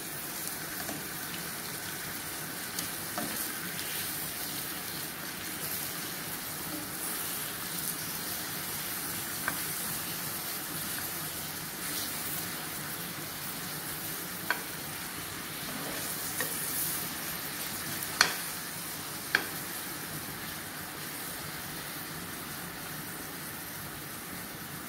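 Lemon slices coated in brown sugar sizzling steadily as they caramelize in a little oil in a hot frying pan. Several short sharp clicks of metal tongs against the pan break in as the slices are turned, the loudest about three-quarters of the way through.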